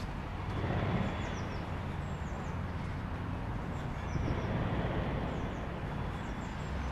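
Steady low rumble of outdoor background noise, with a small bird chirping short, falling notes about once a second.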